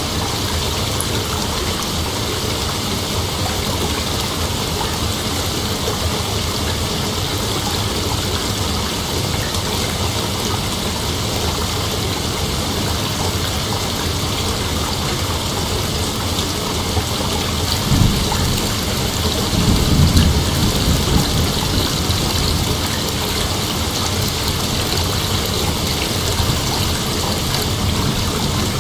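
Dense night insect chorus, a steady hiss-like shrilling high in pitch. A low rumble swells briefly about two-thirds of the way through, and again just after.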